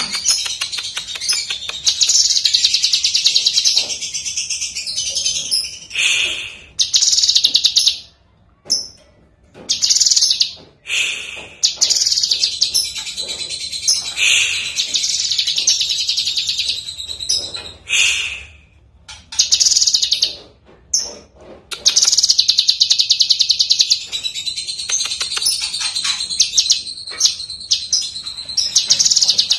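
Caged cucak kinoi leafbird singing a loud, rapid chattering song in long runs broken by short pauses.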